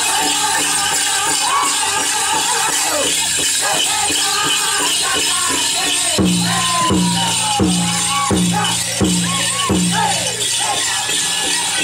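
Powwow drum group playing a chicken dance song: a big drum beating steadily while high voices sing in sliding, falling phrases. From about six seconds in the drum hits harder, about one beat every 0.7 s. Dancers' bells jingle throughout.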